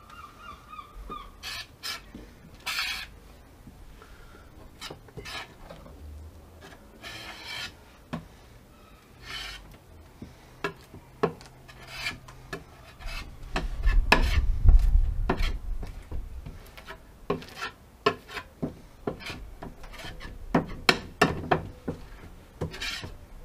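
A hand spreader scraping and smearing adhesive across a wooden board in short, irregular strokes. A low rumble about fourteen seconds in is the loudest moment.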